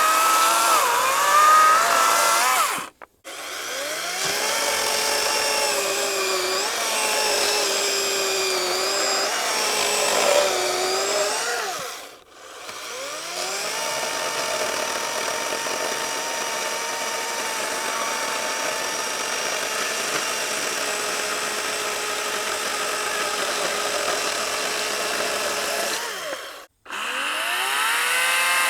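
Battery-powered electric chainsaw cutting slices off a log: a high motor whine that sags and wavers in pitch as the chain bogs into the wood. It stops three times and each time winds back up with a rising whine.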